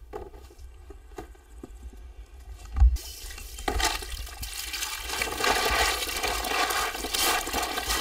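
Water running steadily. It starts about three seconds in, just after a dull thump, and grows a little louder.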